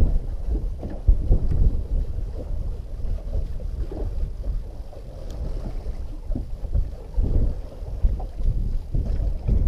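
Wind buffeting the microphone out on a small boat at sea: a low, gusty rumble that swells and fades, easing off around the middle and picking up again near the end.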